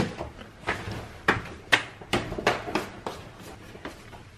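Footsteps in slippers going up indoor stairs, a sharp step about every half second.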